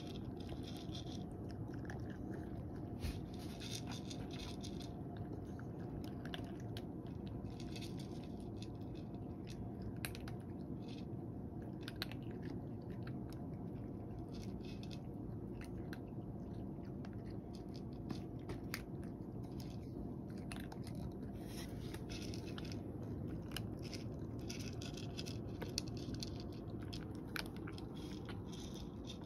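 A cat crunching and chewing dry kibble from a tray, in irregular clusters of small crunches, over a steady low hum.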